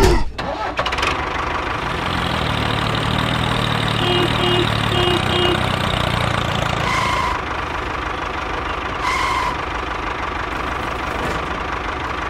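Tractor engine idling steadily, with a deeper rumble for the first few seconds and a few short beeps around the middle.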